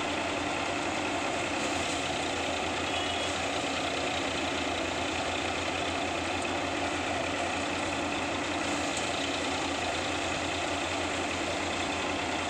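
A tractor-powered paddy thresher running steadily while rice sheaves are fed in: the tractor's diesel engine and the threshing drum make an even, unbroken drone with a fast pulsing low hum.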